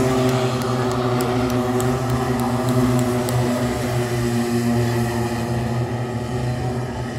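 Several Rotax Micro Max race karts' small two-stroke engines running on the track together, their pitches overlapping and shifting slowly as they drive.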